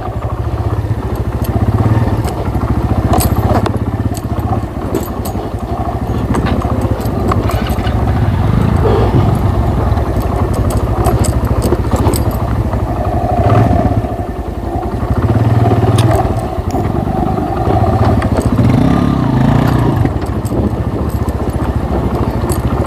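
Motorcycle engine running steadily on a rough off-road track, with many short sharp clicks and rattles throughout.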